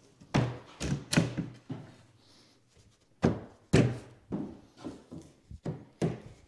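A series of knocks and thunks as a ready-to-assemble cabinet's back panel is set and worked into place in the cabinet box, about nine in all in two bunches with a pause in the middle.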